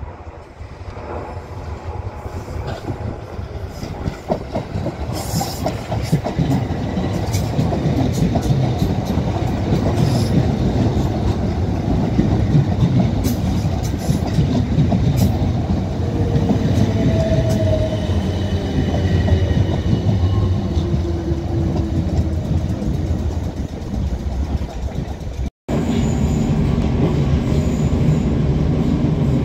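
A train running on the rails, growing louder over the first several seconds, with many sharp clicks from the wheels and track and a falling whine in the middle. Near the end an abrupt cut leads to another steady train sound.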